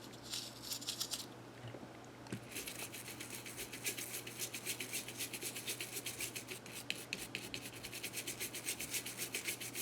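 Toothbrush bristles scrubbing quickly back and forth over the calculator's circuit board: a brief burst, a pause of about a second, then fast, even strokes at about six a second.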